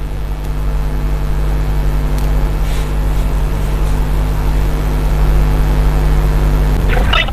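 A steady low hum with several even overtones, unchanging in pitch. A voice starts briefly near the end.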